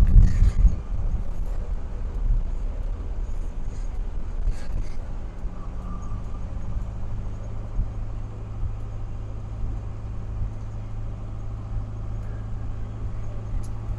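A bus engine running at road speed and road noise, heard from inside the cab, with a jolt and rattling at the start and another brief rattle a few seconds later, then a steady drone.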